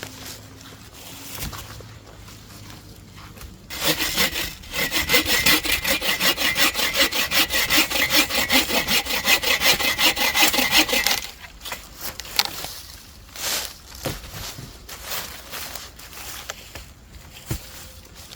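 Hand saw cutting through wood in quick, even back-and-forth strokes. The sawing starts about four seconds in and lasts about seven seconds, followed by a few light knocks and rustles.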